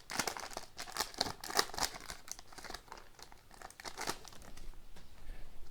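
Hockey card pack wrapper being torn open and crinkled by hand, a run of irregular crackles that thins out near the end.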